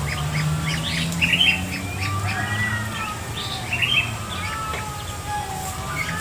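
Chicks peeping in quick, repeated short chirps while foraging with their mother hen, with a few longer gliding calls among them and a low hum underneath.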